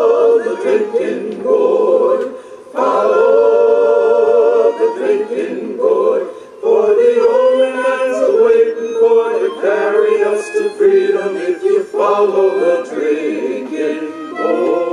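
Several voices singing a cappella, slow held phrases with vibrato, broken by short pauses between lines.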